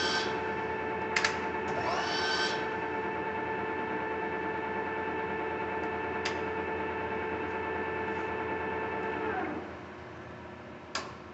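TOS SN71C engine lathe running, a steady gear whine from its drive, with a brief rising whir about two seconds in and a few sharp clicks of its controls. About nine and a half seconds in it winds down, the whine falling in pitch as the machine stops.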